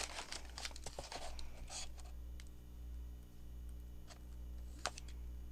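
Paper pages of a book being handled: light rustling and small clicks in the first two seconds, then a few isolated ticks, the sharpest just before the end, over a steady low hum.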